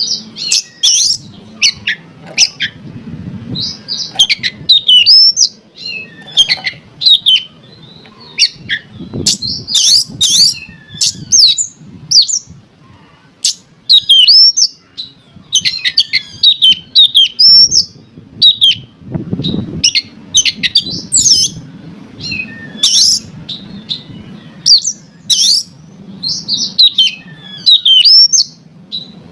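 Oriental magpie-robin (kacer) singing: a long run of quick, varied whistled and chattering phrases, high-pitched, with short pauses between them.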